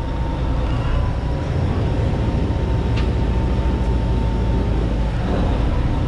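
Party fishing boat's engines running with a deep, steady drone as the boat pulls away from the dock, with a faint steady whine above it. There is one short click about halfway through.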